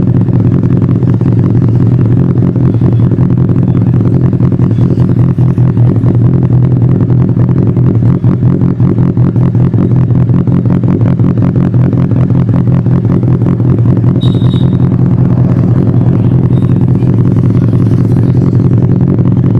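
Benelli TNT 600i's 600 cc inline-four engine idling steadily after starting, its pitch and loudness holding even.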